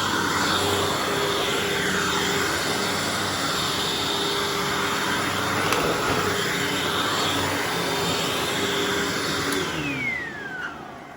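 Hoover Anniversary bagged upright vacuum running steadily on thick carpet, with its self-propel drive engaged. It is switched off about nine and a half seconds in, and its pitch falls as the motor winds down.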